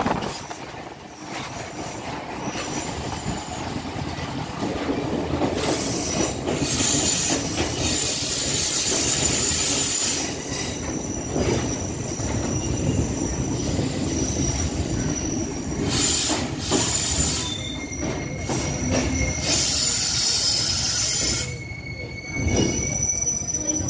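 Passenger train running along the rails, heard from an open door, with high-pitched wheel squeal coming and going several times as it runs in toward a station platform.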